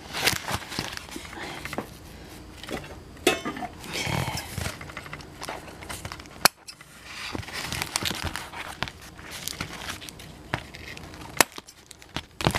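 Plastic and cardboard toy packaging crinkling and rustling as it is handled and cut with scissors to free a fur tail and small figure from their ties, with scattered sharp clicks and snips. Two clicks stand out, one about halfway through and one near the end.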